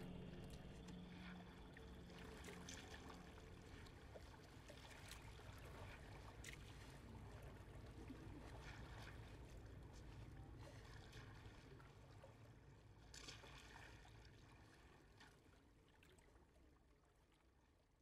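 Faint water sounds: a low rumble with scattered small clicks, fading gradually to near silence over the last few seconds.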